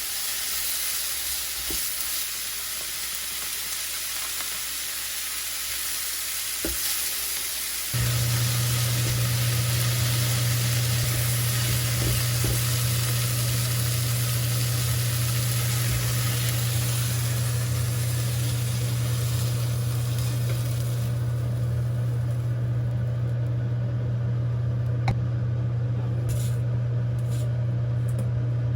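Food sizzling as it fries in a pan, the sizzle dying down about two-thirds of the way through. About a quarter of the way in, a loud steady low hum of an appliance motor starts and keeps going, with a few light clinks near the end.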